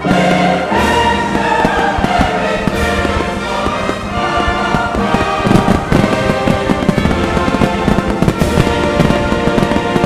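Fireworks banging and crackling over the show's music soundtrack, the bursts coming thick and fast in the second half.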